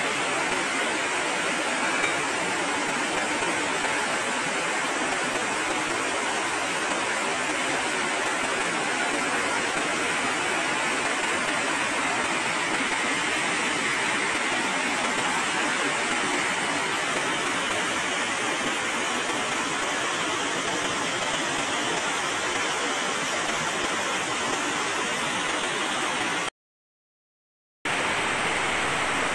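Heavy rain pouring steadily on corrugated metal roofs and trees, a dense even hiss. Near the end the sound cuts out completely for about a second and a half, then the rain resumes.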